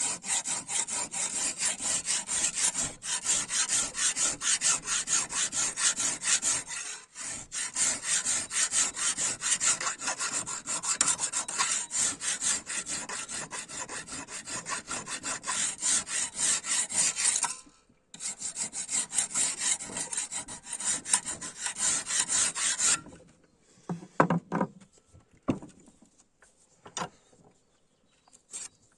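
A hand tool working the steel of a chainsaw bar with rhythmic back-and-forth rasping strokes, about three a second. The strokes pause briefly about two thirds of the way in and stop near the end, followed by a few light knocks.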